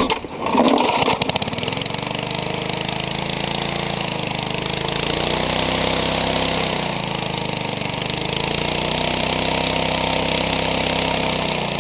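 Small lawn mower engine catching about a second in and then running steadily, its speed sagging and recovering a couple of times.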